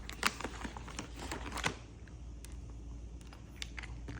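Maine Coon cat crunching dry treats: quick irregular crackles and clicks, dense for the first second and a half, then fewer and sparser.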